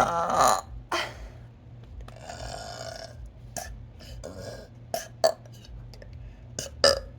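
Deliberate burping by a person: a long, loud burp right at the start, then a longer one about two seconds in and several short burps spaced about a second apart.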